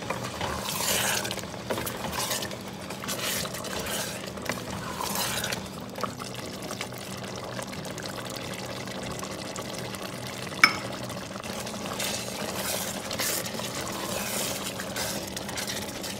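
Chicken curry simmering and bubbling in a steel pot, with a spatula scraping through it in strokes near the start and again near the end. One sharp click about ten and a half seconds in.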